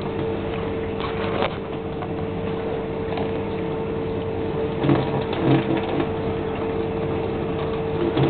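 Water running steadily from a kitchen mixer tap over a cat's head and splashing into a stainless steel sink, with a steady hum underneath.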